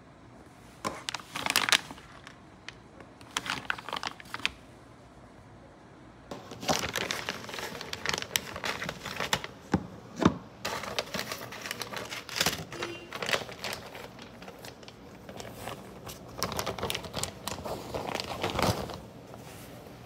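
Clear plastic packaging crinkling and rustling as it is handled and opened. There are a couple of short bursts at first, then near-continuous irregular rustling with sharp clicks.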